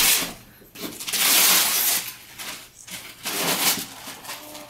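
Gift wrapping paper being torn and crumpled in several rustling bursts. The longest and loudest comes about a second in and lasts nearly a second.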